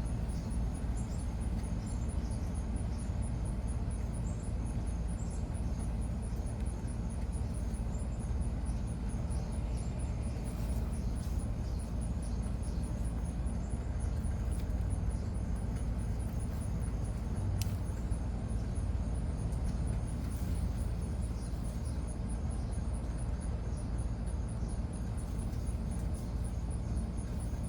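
Outdoor garden ambience: a steady, high, pulsing insect trill over a constant low rumble, with a few short clicks scattered through.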